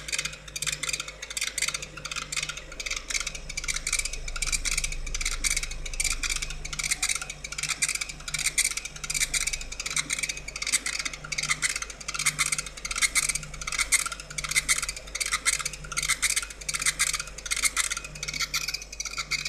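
CO2 laser engraver etching a glass bottle turning on a rotary attachment: a fast, uneven crackle of ticks, several a second, as the beam fires on the glass, with a low motor hum coming and going.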